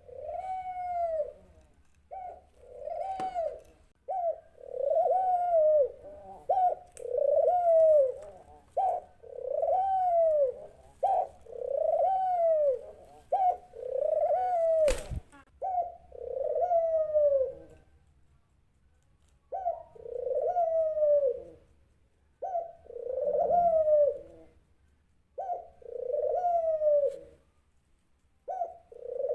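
Dove cooing over and over, each call a short note followed by a longer one that rises and falls, about one call every two seconds, with a pause of a couple of seconds a little past the middle. A single sharp click about halfway through.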